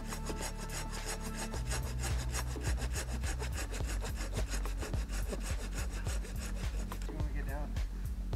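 Hand saw cutting through a dead branch with quick, repeated back-and-forth strokes.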